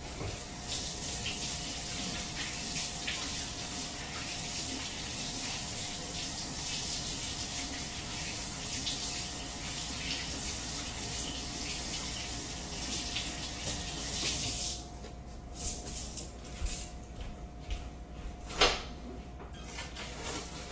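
Kitchen tap running into a sink as hands are washed, a steady hiss that stops after about fourteen seconds when the tap is turned off. A few light knocks and one sharp click follow.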